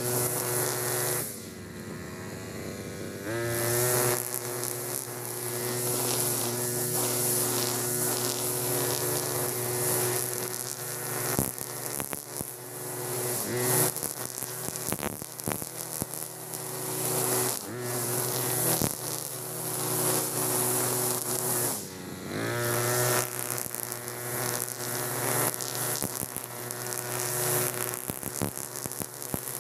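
Two-stroke brush cutter with a nylon-line trimmer head running at high revs while cutting grass. The throttle eases off about a second in and again about two-thirds of the way through, the engine note falling and then climbing back up.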